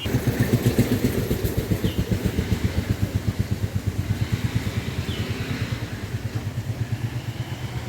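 A small engine running nearby with an even, rapid chugging beat. It swells up at the start and eases off slightly toward the end. A bird gives a few short chirps over it.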